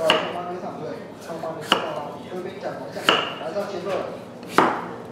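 A large knife chopping through raw butternut squash onto a wooden cutting board: four sharp chops about a second and a half apart.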